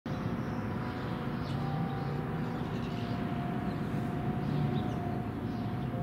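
Steady low rumble of city traffic, with the faint, steady tones of distant outdoor warning sirens sounding alert.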